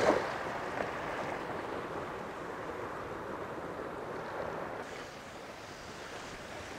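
Sea waves breaking and washing over rocks: a steady rush of surf that eases a little about five seconds in.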